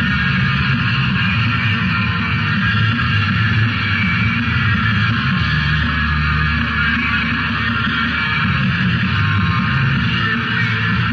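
Rock music recording playing steadily, a dense, unbroken wash of sound.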